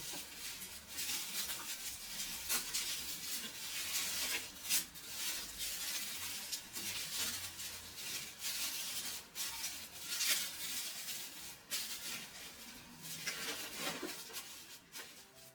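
Irregular rustling and light clicking of food containers and packaging being handled.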